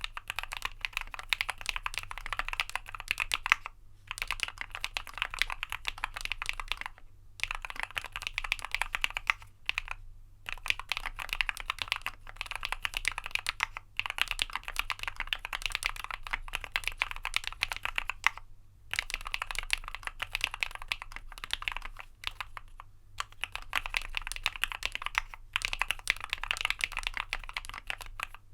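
Typing on a Keychron Q1 knob mechanical keyboard with lubed Turquoise Tealios linear switches and dolch PBT keycaps, in its PE foam mod. Fast runs of keystrokes come in bursts of two to four seconds, split by short pauses.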